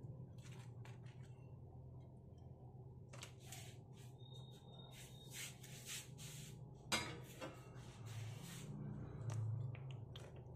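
Fried egg pakoras being set down on a ceramic plate: scattered soft taps and rustles, with one sharp clink about seven seconds in. A low steady hum runs underneath.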